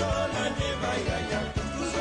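Music with a steady beat and a wavering melody line.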